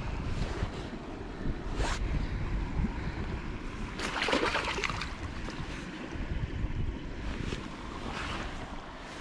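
Wind buffeting the microphone over the rush of river water, with a brief louder splash about four seconds in as the landing net moves in the water.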